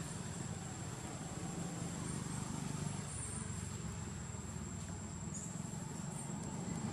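Steady outdoor background: a continuous low rumble with a thin, constant high-pitched whine above it.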